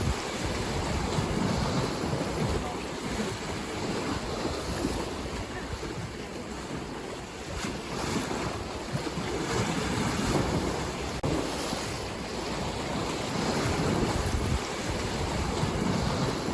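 Ocean waves breaking and washing in, the surf rising and easing in slow swells every few seconds, with wind rumbling on the microphone.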